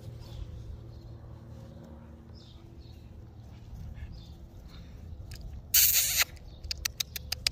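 Dogs play-wrestling, with faint low growling; near the end a loud burst of rustling noise and a few sharp clicks.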